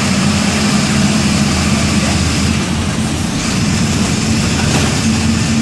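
MWM 6.12 TCE 225 hp six-cylinder inline diesel engine of a Volksbus 17-230 EOD bus, running steadily under way. Its note steps up slightly about five seconds in.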